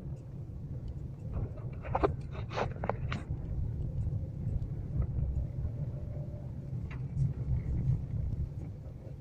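Low, steady rumble of a car driving, heard from inside the cabin, with a few sharp clicks about two to three seconds in and one more near the end.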